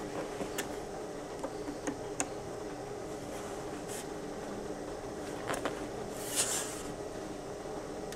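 LaCie external hard drive running with a steady whir, broken by irregular clicks and a brief scratchy burst about six seconds in: the abnormal noises of a faulty drive.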